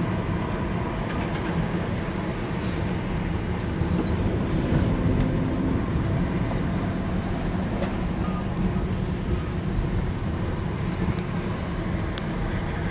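Steady rumble of a car driving on the road, with a few faint clicks.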